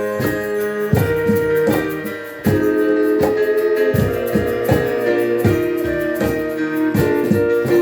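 Live ensemble music: a street piano with long held notes from a wind instrument over a steady beat of percussive strikes, with a brief drop in loudness about two and a half seconds in before the playing picks up again.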